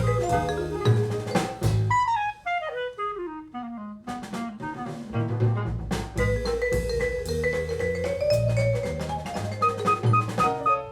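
Instrumental jazz with drums played through Elfton Elevator loudspeakers and picked up in the room, with a falling run of notes about two seconds in before the melody and drums pick up again.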